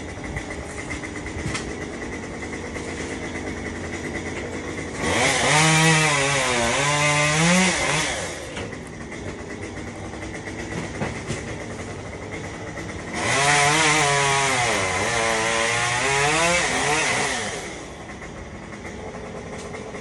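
Two-stroke chainsaw revved up for two cuts into wood, one about 5 seconds in and lasting about 3 seconds, the other about 13 seconds in and lasting about 4 seconds. During each cut the engine note sags under load and rises again as the cut frees. Between the cuts a steady engine hum runs underneath.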